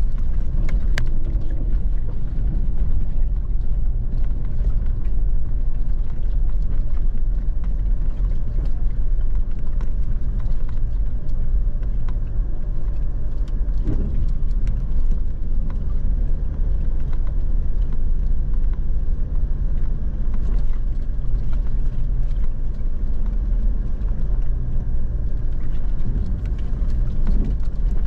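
A vehicle driving along a dirt track: a steady low engine drone and road rumble, with scattered short knocks and rattles.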